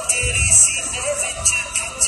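Background music: a song with a singing voice over a steady percussive beat.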